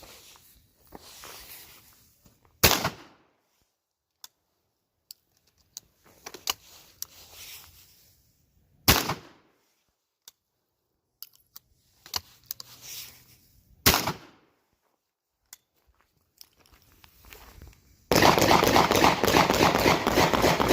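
Three .410 gunshots, about five to six seconds apart, each a sharp crack with a short echo, with a few light clicks between them. About two seconds before the end, a loud continuous rustling noise starts.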